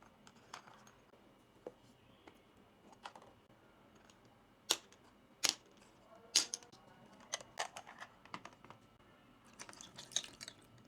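Small plastic toy kitchen pieces being handled: scattered light clicks and taps, with a few sharper clicks around the middle and a quick run of small clicks near the end.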